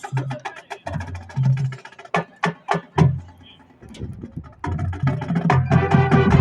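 High school marching band playing: sharp drumline hits and low drum notes, then the band joining in on a loud chord that cuts off suddenly at the end.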